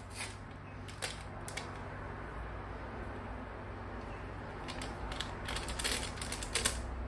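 Baking powder sachet being handled and emptied into a bowl: scattered crinkles and soft clicks, a few near the start and a denser run about five seconds in as the packet is shaken out.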